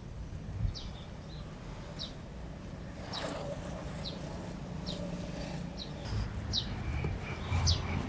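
A small bird giving short, high, falling chirps about once a second, over a steady low rumble of street traffic.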